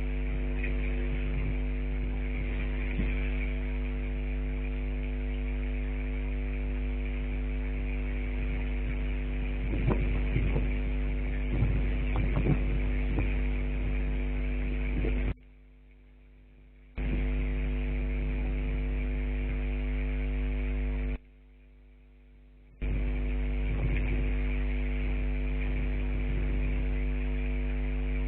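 Steady electrical hum made of several fixed tones, with some irregular crackling about ten to thirteen seconds in; the sound cuts out abruptly twice for a second or two.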